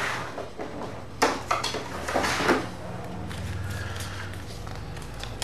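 Handling noise: a quick run of light clicks and knocks from small hard objects being picked up and set down, bunched together between about one and two and a half seconds in.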